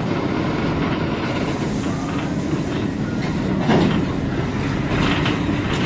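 Railway crane running along the track: a steady rumble of wheels on rail with a clack at the rail joints about once a second, one louder clack near four seconds in.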